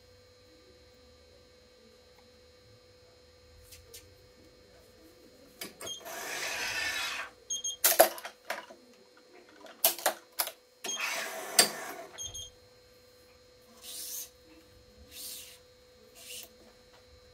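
Badminton racket stringing on a stringing machine: after several seconds of near quiet, two long swishes of string and racket being worked, with sharp clacks of the machine's clamps and turntable between them, then a few softer rustles.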